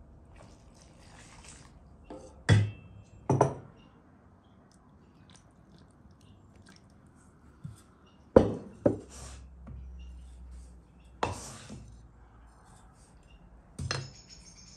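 Enamel bowls and pots knocking and tapping against each other while ingredients go into a basin of flour. There are about six sharp knocks: two close together a couple of seconds in, two more around the middle, then single ones later.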